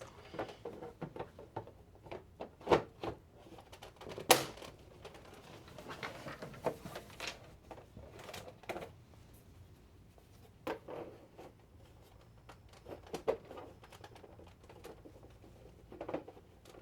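Scattered clicks and knocks of hands handling and fitting the plastic casing panels of a PlayStation 5 console, with two sharper knocks about three and four seconds in.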